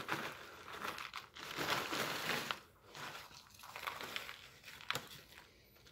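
Crinkling of a foil ration pouch as it is shaken, with baked cheese crackers sliding out and landing on a plastic tray. The rustle is heaviest for about a second around the two-second mark, then comes in smaller shakes, with one sharp click near the end.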